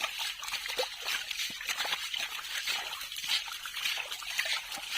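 Shallow water trickling and splashing, with many small irregular splashes.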